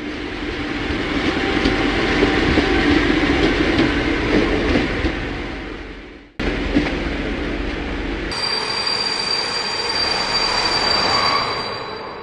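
Passenger train passing by, swelling to a peak and fading away. After a sudden cut, a train rolls in with a steady high squeal of its wheels that fades near the end.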